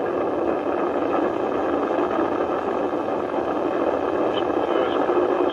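Atlas V rocket's RD-180 first-stage engine at full thrust just after liftoff, a steady, dense rushing rumble.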